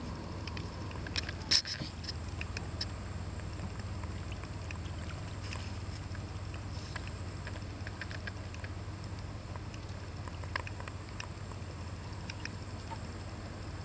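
Small water sounds against a wooden boat's hull: scattered light ticks and patter over a steady low rumble, with one sharp knock about one and a half seconds in.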